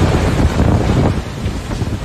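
Strong storm wind buffeting the microphone: a loud, gusty rumble that eases slightly just past a second in.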